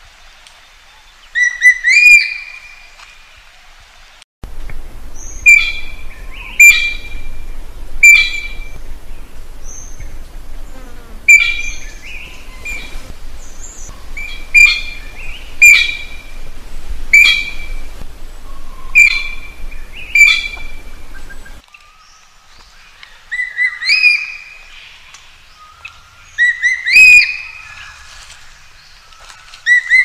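Blue magpie calling: a long series of loud, short, ringing calls repeated about once every second or so.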